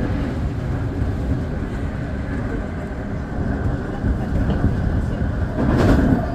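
Semboku Rapid Railway 9300 series electric train running between stations, heard from the front car: a steady rumble of wheels on rail. There is a brief louder rush of noise near the end.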